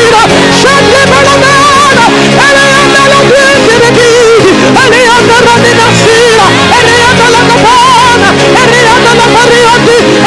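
Loud live gospel worship music: a wavering melody line with vibrato over held chords.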